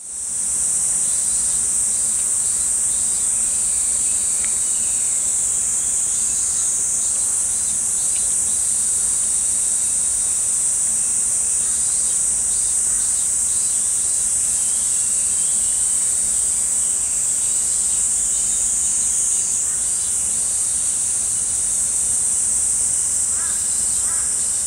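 Steady, high-pitched chorus of insects droning without a break, with faint short chirps now and then.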